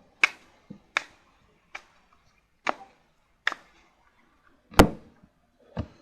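Oracle cards being handled on a table: about eight sharp taps at irregular spacing, the loudest about five seconds in.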